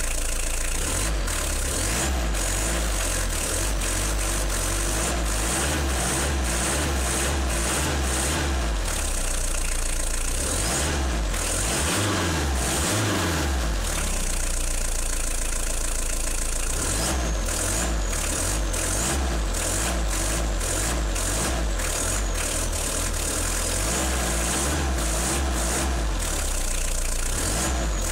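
Opel Astra G 1.7 DTL four-cylinder turbodiesel running steadily, freshly rebuilt with a new crankshaft, connecting rod and big-end bearings; the owner says it purrs. About halfway through, the engine speed briefly rises and falls.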